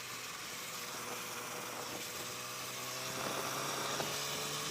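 Motorcycle engine running while riding, with a steady rush of wind noise. The engine's pitch climbs slowly from about two seconds in as the bike speeds up.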